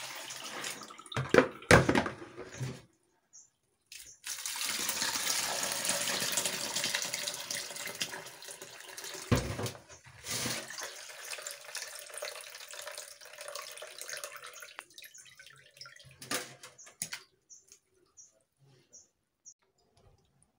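Kitchen tap running into a sink while soaked beans are rinsed in a plastic sieve to wash off their skins, with a few sharp knocks near the start. The water is loudest from about four seconds in, eases after about ten seconds and stops about three-quarters through, leaving a few small clicks.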